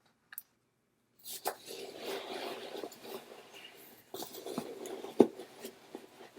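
Rustling and crinkling of packaging as items are handled from a subscription box, starting about a second in, with scattered small clicks and one sharp knock about five seconds in.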